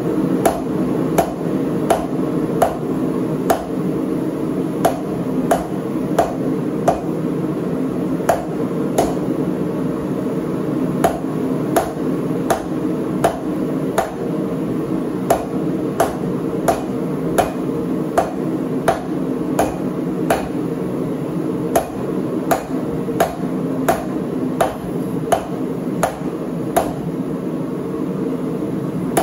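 Hand hammer striking hot steel from a lug wrench on an anvil in a steady rhythm, about three blows every two seconds, forging it into a nail header. A steady low rushing noise runs underneath.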